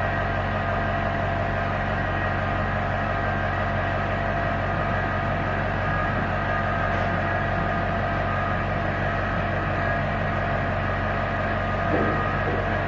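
Steady hum of running workshop machinery, several constant tones held without change, with a light knock near the end.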